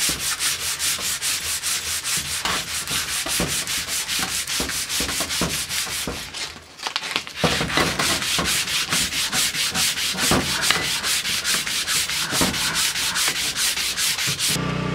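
Sandpaper rubbed back and forth by hand along a wooden axe handle, quick even strokes of about five a second, with a brief pause about halfway through. The sanding is taking old paint and grime off the handle.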